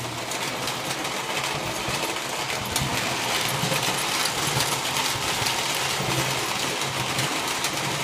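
Postwar Lionel toy steam locomotive and its train of cars running on metal three-rail track: a steady rattling run of motor and wheels with many small clicks.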